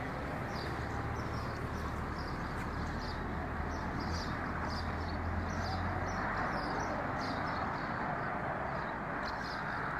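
Outdoor ambience: a steady background hiss with many short, high chirps from small birds scattered throughout, and a low hum that fades out about six seconds in.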